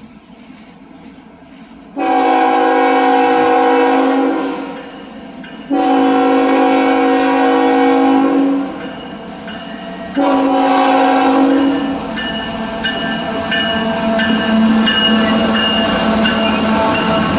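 Freight locomotive's multi-note air horn sounding three blasts, two long and a shorter third. The train then keeps running past close by, loud and steady, with the rumble of its diesel engine and wheels on the rails.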